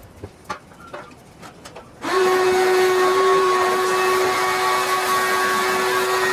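A few light clicks, then about two seconds in a small motor starts up and runs at a steady, loud whine with a hiss over it.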